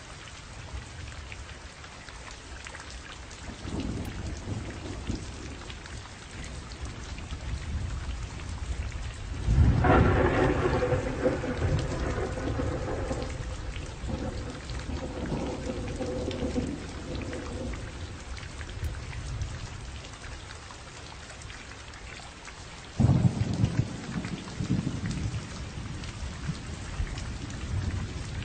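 Steady rainfall with rolling thunder: a faint rumble a few seconds in, a loud thunderclap about ten seconds in that rumbles on for several seconds, and another sharp clap near the end.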